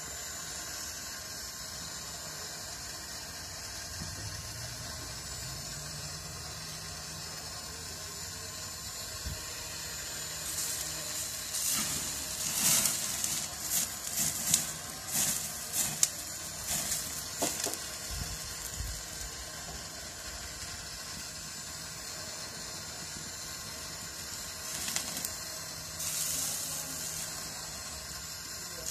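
Fat dripping from rotisserie-cooked sirloin onto a gas grill's flames: a steady hiss, with bursts of sizzling and crackling through the middle stretch and again near the end as the flames flare up.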